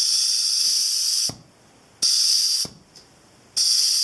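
Compressed air from a blow gun hissing in three bursts into the air port of a Fadal VMC 4020 drawbar cylinder, pressurising it to make the piston move. There is a short knock as the first burst stops.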